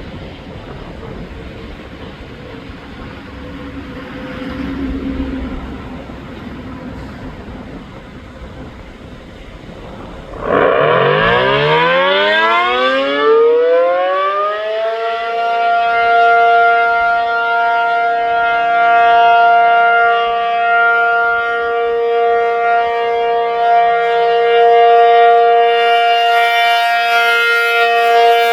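After about ten seconds of background noise, an ACA Penetrator P-50 tornado siren (50 hp three-phase motor, 8/12-port chopper) starts up. Its pitch rises for about four seconds, then settles into a loud, steady two-tone chord: the Alert signal.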